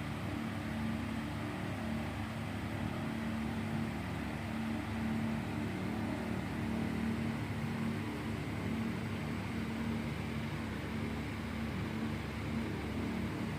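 Steady low mechanical hum with a faint drone, unchanging throughout.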